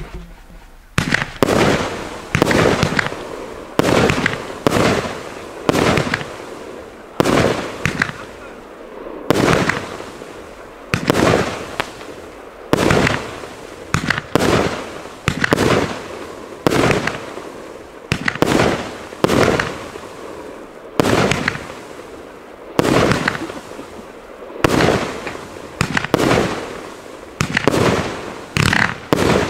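A 25-shot, 30 mm fireworks cake firing shot after shot: a steady string of sharp launch thumps and burst bangs, about one a second, each trailing off before the next.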